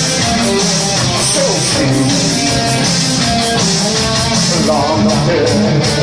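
Live rock band playing: electric guitar over a steady beat, with singing coming in near the end.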